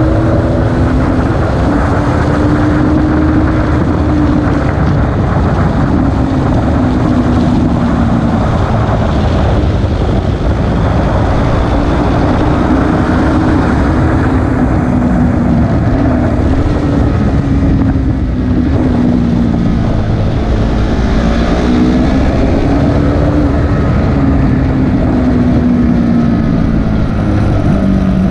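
KTM RC 390's single-cylinder engine running hard at high revs, heard from a camera mounted on the bike. Its pitch swells and falls over several seconds at a time as the rider brakes into corners and accelerates out of them.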